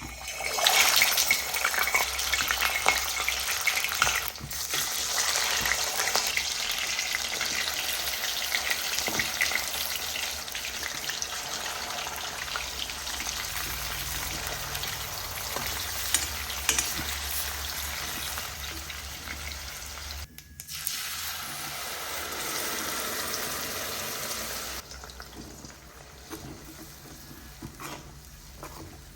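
Fish frying in hot oil: a steady crackling sizzle. It breaks off briefly about twenty seconds in and is softer near the end.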